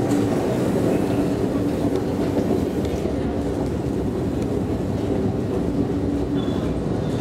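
Escalator running while being ridden downward: a steady mechanical rumble with a constant low hum.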